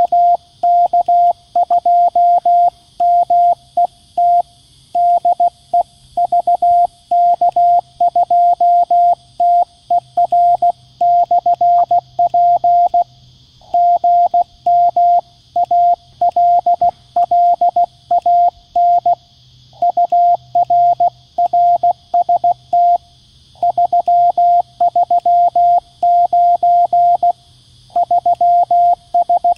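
QCX-mini CW transceiver's Morse sidetone: a single-pitch beep keyed on and off in dots and dashes at about 16 words per minute, with short gaps between words. It is the operator transmitting a reply to VK2MET with a signal report, 'gm Allan ur rst 339 33n'.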